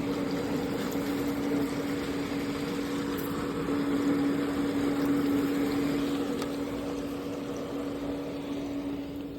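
Pool pump motor running with a steady, even hum over a hiss, drawing the suction for a pool vacuum; it gets a little quieter over the last few seconds.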